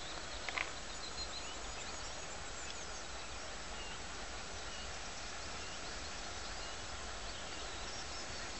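Outdoor ambience of birds chirping here and there over a steady hiss and low rumble, with one short click about half a second in.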